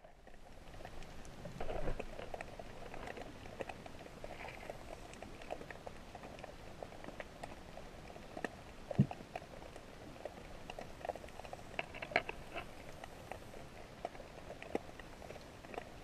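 Underwater ambience: faint, scattered clicks and crackles. A louder dull knock comes about nine seconds in, and a brief cluster of clicks around twelve seconds.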